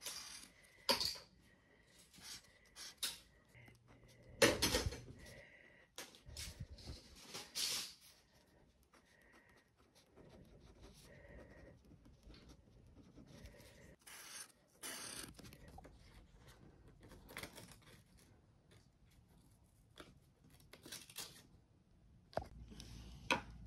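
Marker and pen strokes on paper: a scattered series of short scratchy strokes and rubs as items are crossed out with a highlighter and written into a planner.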